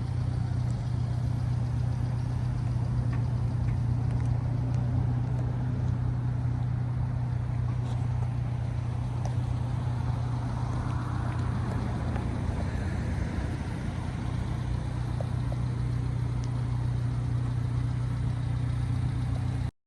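1999 Subaru Sambar mini truck's small four-cylinder engine idling steadily, a constant low hum.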